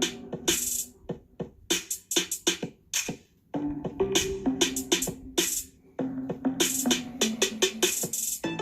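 Beat-driven electronic music with sharp drum-machine hits over a bass line, played at full volume through the built-in speakers of a 2018 iPad Pro 12.9. The music breaks off briefly twice.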